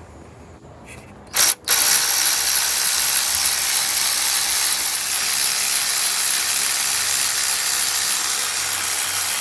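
Cordless electric ratchet spinning out the long bolt of an idler pulley. A short burst about a second and a half in, then it runs steadily.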